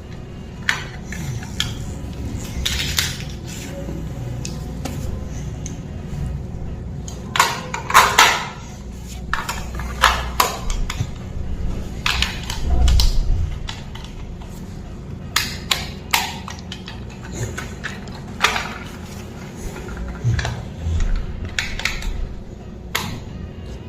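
Irregular clicks, knocks and clatter of a small toy car and its packaging being handled, over a steady low rumble.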